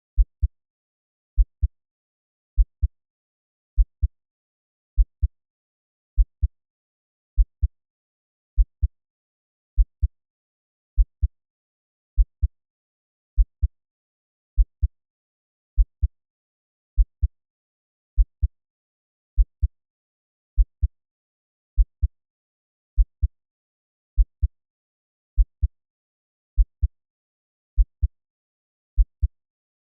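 Slow heartbeat at 50 beats per minute: a deep double thump, lub-dub, repeating steadily about every 1.2 seconds with silence between beats.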